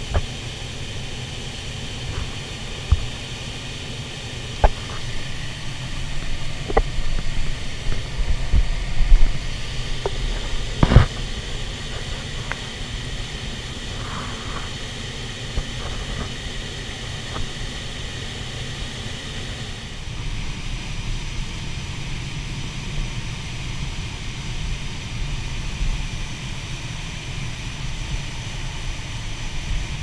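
Swollen mountain river rushing in a steady roar. A few sharp knocks and clicks fall in the first part, the loudest about eleven seconds in.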